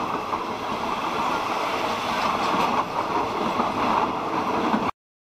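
Passenger train carriages rolling past, making a steady noise of steel wheels on the rails. The sound cuts off suddenly near the end.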